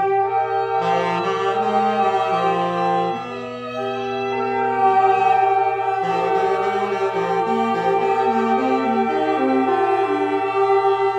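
Free-jazz reed ensemble of clarinet and alto and tenor saxophones improvising in long held notes: one tone is sustained nearly throughout while lower horns step up and down in pitch beneath it, with a short lull a few seconds in.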